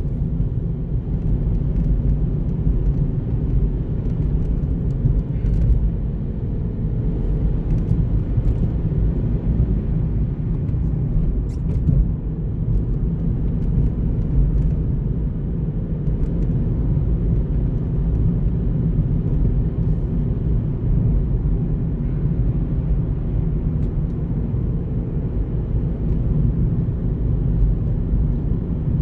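Car driving steadily at road speed: a continuous low rumble of tyres on asphalt and engine.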